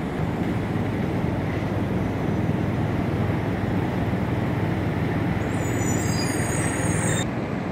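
Street traffic: a steady low rumble of motor vehicles running nearby. About five and a half seconds in there is a brief high-pitched sound lasting a second or two.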